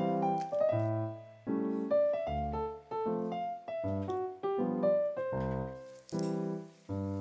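Background piano music: a light tune over chords, with the notes changing about twice a second.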